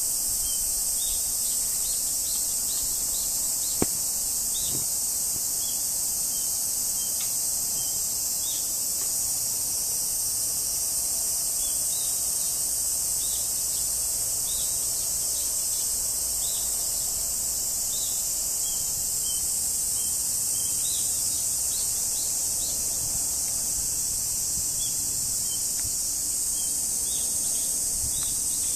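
Steady high-pitched drone of summer insects, with short bird chirps repeating through it. A single sharp click about four seconds in.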